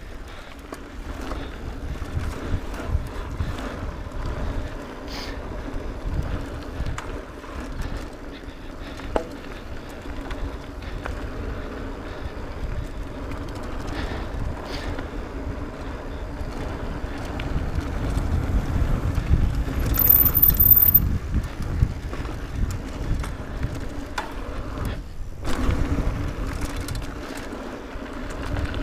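Mountain bike riding fast down a dirt singletrack: tyres rolling over dirt with a low rumble of wind on the microphone and frequent clicks and rattles from the bike. It gets louder about two-thirds of the way through.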